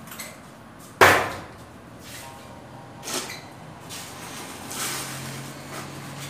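Steel shovel scooping into a heap of sand on a concrete floor: one loud, sharp scrape about a second in, then softer scrapes near three and five seconds.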